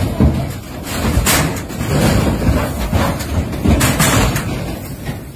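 A giraffe's hooves knocking and banging on a truck's metal crate and loading ramp as it bolts out: several loud knocks over a low rumble, the biggest about a second in and again around four seconds in as it leaps down the ramp.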